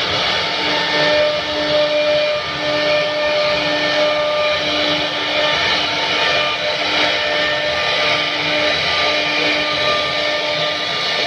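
CNC router spindle running and cutting: a steady whine over a continuous harsh cutting noise, with a lower hum that cuts in and out about once a second.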